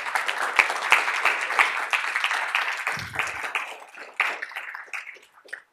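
Audience applauding, many hands clapping at once and dying away near the end.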